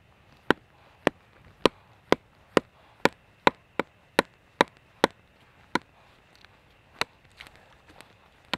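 Axe chopping wood: a run of sharp, hard strikes about two a second, slowing to a few spaced-out blows near the end.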